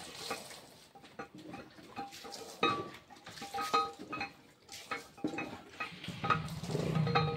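Scattered metal clinks and knocks, each with a short ring, from steel engine parts handled on a stripped engine block. A steady low hum builds near the end.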